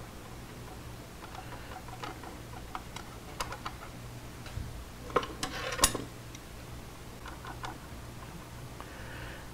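Small metal clicks and taps as the blade-tension knob and its retaining screw are handled and fitted on a DeWalt 788 scroll saw's upper arm. The clicks come irregularly, with a louder cluster about halfway through.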